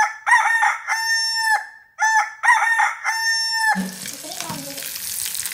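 A rooster crowing twice: each crow a few short notes and then one long held note. About three-quarters of the way in the crowing stops and a crackling hiss of onion masala frying in a pan takes over.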